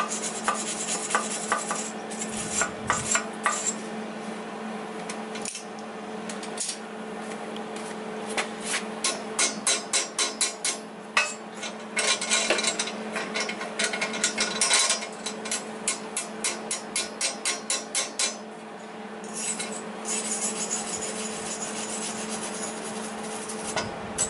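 Hand wire brush scrubbing slag off a fresh flux-core weld on a steel caster mount, in quick back-and-forth strokes of about four a second, in several runs with short pauses between them.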